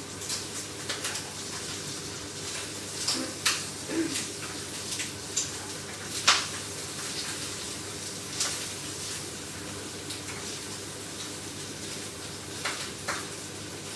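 A metal spatula scraping and clacking irregularly against a wok as pork is stirred over a gas flame, the loudest clack about six seconds in, over a steady hiss of the food cooking in the pan.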